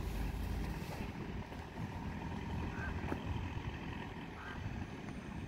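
Diesel railbus running as it slowly approaches along the platform, a steady low rumble mixed with wind buffeting the microphone. Two short high squeaks come near the middle.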